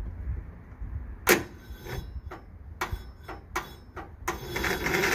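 Troy-Bilt Super Bronco riding mower's Kohler Courage 20 hp engine being cranked on the key. A loud click about a second in is followed by slow, uneven knocking strokes, then a short rough burst near the end as it tries to fire but doesn't catch. The battery is too weak to give it more cranking speed.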